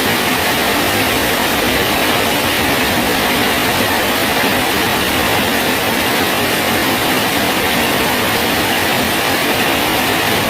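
Steady rain falling on a bridge, an even, unbroken hiss with no single drops or changes standing out.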